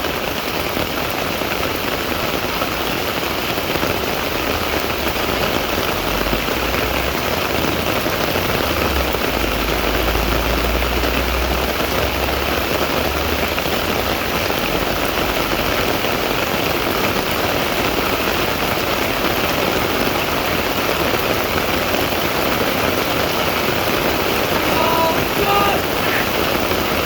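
Steady, loud hiss of rain falling, with a low rumble underneath for several seconds in the first half.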